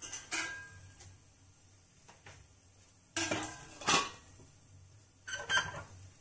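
Stainless steel plates and bowl clinking and clattering as they are handled: four short metallic clatters, the first just after the start, two close together around the middle and one near the end.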